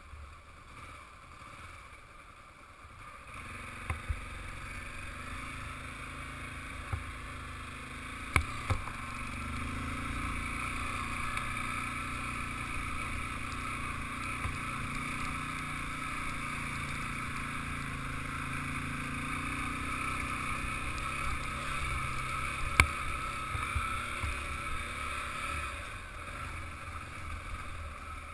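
Dual-sport motorcycle engine running with wind noise on the helmet microphone. It gets louder about three seconds in as the bike moves off and stays steady after that. A few sharp knocks come through, the loudest about 23 seconds in.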